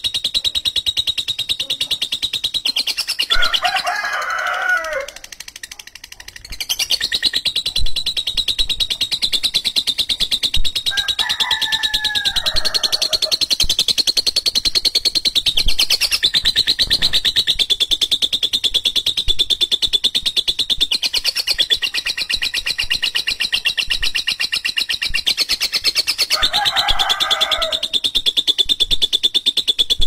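Lovebird's ngekek: a long, harsh, very fast chattering trill, held almost without a break, stopping once about five seconds in and picking up again a second later. Three times, a shorter and lower call sounds over the trill.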